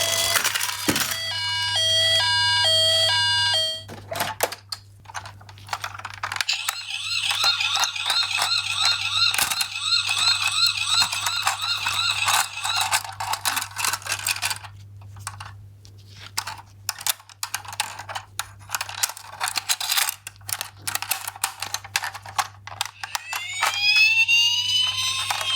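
Electronic sirens of toy ambulance minicars sounding one after another. A two-tone hi-lo siren stops about four seconds in, then a fast warbling siren sounds, and a rising-and-falling wail comes near the end. Many sharp clicks and clacks of the small plastic toy cars being handled sound between and over the sirens, with a low steady hum underneath.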